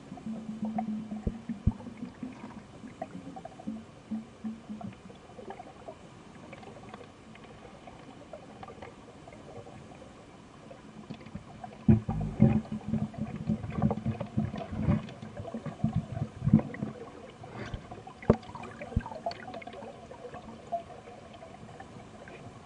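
Underwater sound picked up by a submerged camera in a pond: scattered clicks and knocks, with a low hum and a cluster of knocks in the first few seconds and again from about twelve to seventeen seconds in.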